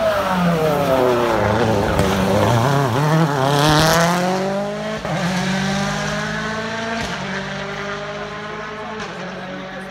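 Ford Fiesta WRC rally car's turbocharged four-cylinder engine driven hard past at close range, revs rising and falling, loudest about four seconds in, then its note dropping and fading as it drives away.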